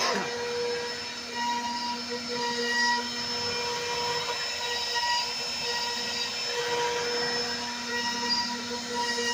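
CNC router spindle running at high speed while cutting a door design: a steady high-pitched whine over a constant cutting noise, with a brief falling sweep at the very start.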